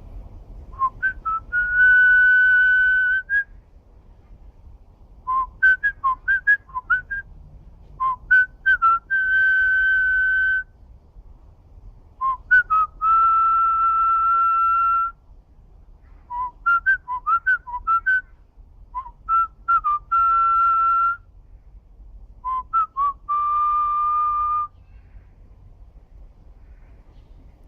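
A person doing artistic whistling: seven phrases, each a run of quick short notes, most ending in a long held note.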